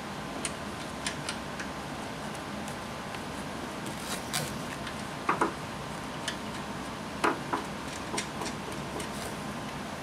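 Scattered small clicks and taps of nuts and gloved fingers working the front strut's upper mount studs under the plastic cowl, with a few louder clacks from about four seconds in, over a steady background hum.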